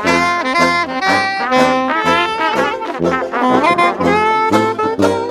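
Lively brass band music with a tune of sustained notes over a regularly pulsing bass line.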